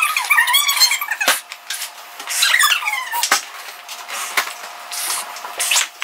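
Latex balloon being blown up by mouth, its stretched rubber giving short wavering squeaks, with a few sharp clicks from handling, the two strongest about a second and three seconds in.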